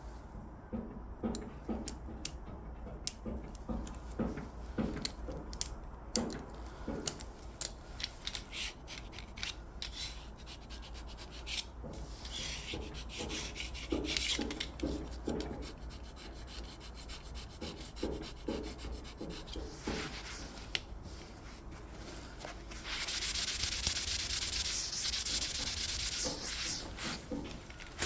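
Hand rubbing and sanding on an engineered-wood floor while a damaged spot is being repaired: short rhythmic strokes mixed with light clicks and taps. Near the end there is a steadier scrubbing for about four seconds.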